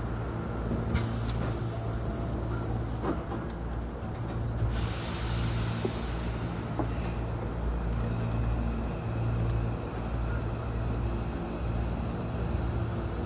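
Hankyu electric train running, heard from the driver's cab: a steady low rumble and hum of wheels and motors. Two spells of hissing come over it, one about a second in and a longer one near the middle.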